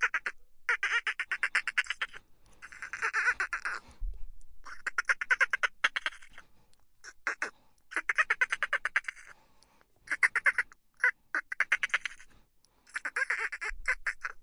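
Dolphins chattering: about ten short bursts of rapid clicking pulses, each up to a second long, separated by brief pauses. These are the burst-pulse chitters that sound almost like laughter.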